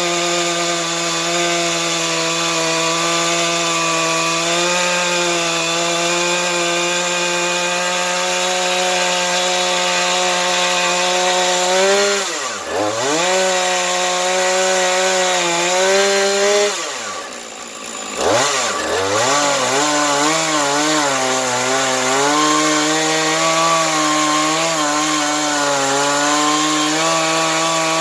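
Chainsaw running at full throttle as it rips a slab along a chainsaw mill. Its revs drop sharply twice, about twelve seconds in and again around seventeen to nineteen seconds, where the saw nearly dies before picking back up, then it runs a little lower under load. It is fitted with a standard chain rather than a ripping chain, which makes it pull in the cut.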